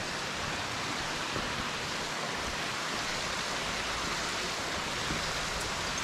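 Creek water rushing below a footbridge: a steady, even rush with no breaks.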